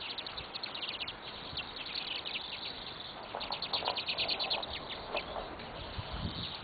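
Small birds chirping: short, high chirps throughout, with a quick run of many chirps a few seconds in.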